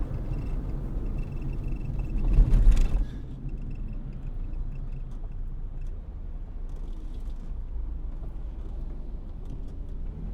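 Steady low vehicle rumble outdoors, the siren silent, with a louder rushing swell about two to three seconds in.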